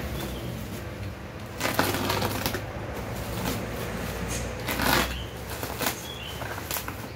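Black plastic parcel wrapping crinkling and rustling in irregular bursts as it is handled and slit open with a box cutter, the loudest burst about five seconds in.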